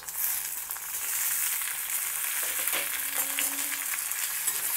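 Hot oil sizzling in a steel kadai as cut tomato pieces are tipped in on top of frying onions. The sizzle jumps up at once as they land, then carries on steadily.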